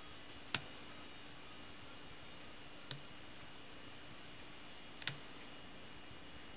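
Lock pick working the pins of a vintage five-pin Master Lock locker lock: three sharp metallic clicks, about two seconds apart, over a steady hiss.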